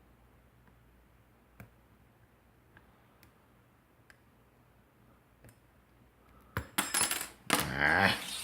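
Metal wafer padlocks being picked: a few faint clicks of the pick, then near the end a loud metallic clatter and jangle as the linked padlocks knock and rattle together.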